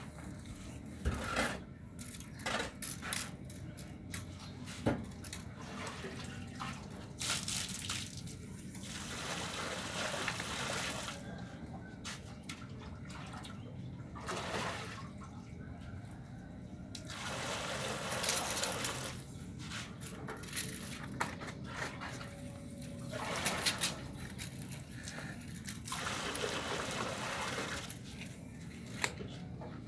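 Water sloshing and pouring in repeated spells of a second or two, as buckets are dipped into a plastic water drum and emptied into the hollow of a cement mix heap: water being added to the mix. Scattered knocks of the plastic buckets.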